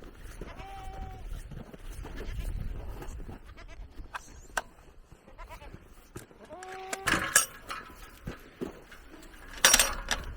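Dairy goats bleating: a faint call about half a second in and a louder one around six seconds in. A brief loud clatter comes near the end.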